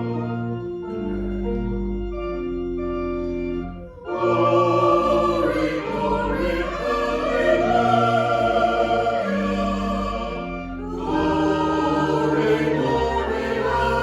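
Choral church music with organ: held chords that are lighter for about the first four seconds, then fuller singing with organ from about four seconds in, easing briefly near the end before swelling again.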